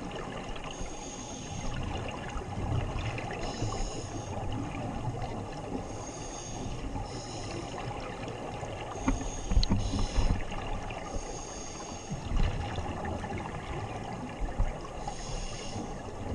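Scuba regulators heard underwater: hissing inhalations that recur every few seconds over a low watery rumble, with muffled rumbling bursts of exhaled bubbles, loudest about nine and a half seconds in and again around twelve seconds in.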